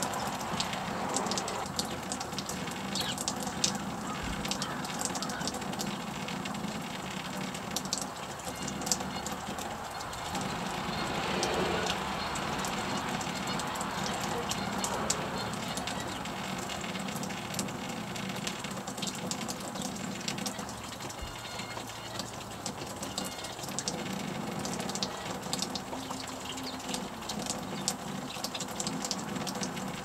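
Steady outdoor rushing hiss with short, high chirps and ticks from small birds at a feeder scattered through it.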